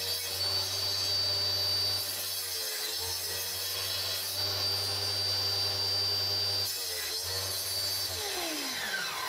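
Table saw running and cutting an MDF board pushed through the blade on a sled for an angled cut. About eight seconds in the saw is switched off and its pitch falls steadily as the blade spins down.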